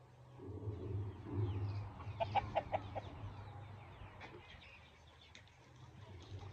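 Chickens clucking, with a quick run of about five sharp clucks about two seconds in.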